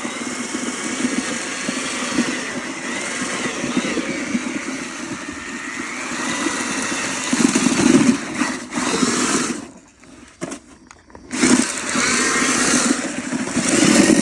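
Handheld drill spinning a paddle mixer through cement in a plastic bucket, the motor whine rising and falling in pitch as its speed changes. It stops for about a second and a half about ten seconds in, then starts again.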